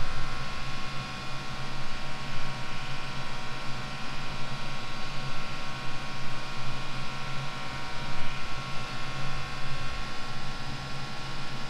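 Steady mechanical hum over an even hiss of noise.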